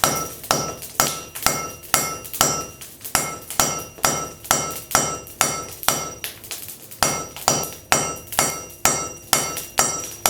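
Rounding hammer striking the hot end of a railroad spike on an anvil in a steady rhythm of about two blows a second, each blow ringing briefly. The end is being upset to mass it up.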